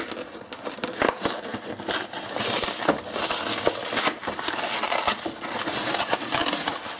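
Cardboard box of a Hungry-Man frozen dinner being torn open by hand: irregular tearing, scraping and crinkling of paperboard with many sharp clicks.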